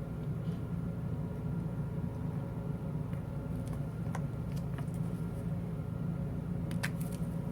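Steady low machinery hum, with a few faint light clicks from small metal parts being handled.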